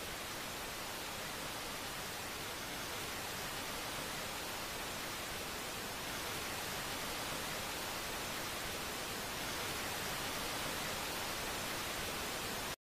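Steady static-like hiss with nothing else in it, growing slightly louder, then cutting off abruptly near the end.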